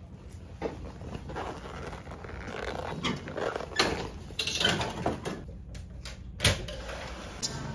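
Scattered rustling and handling noises, then a sharp click about six and a half seconds in as a metal lever door handle is turned and the latch releases.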